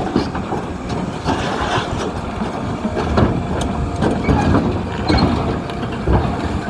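John Deere 350 hydraulic excavator's diesel engine running while the machine is unloaded from a lowboy trailer, with scattered clanks and knocks.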